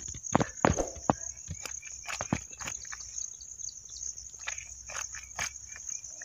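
Fish scales being scraped off against a curved cutting blade: irregular short rasps and clicks as the fish is drawn over the edge. A steady high-pitched buzz of insects runs underneath.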